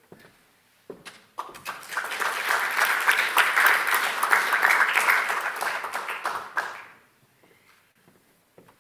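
Audience applauding: a few scattered claps about a second in, swelling into full applause that dies away about seven seconds in.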